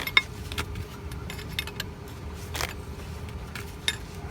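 Scattered light metallic clicks and clinks of a wrench and hose fittings being handled, a few short ones spread over the seconds.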